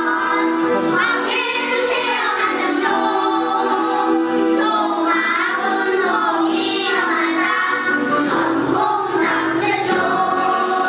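Children's choir singing a song in Korean.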